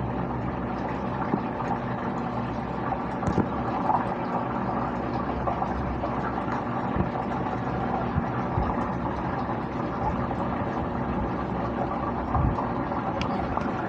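A steady mechanical hum with a few faint clicks here and there.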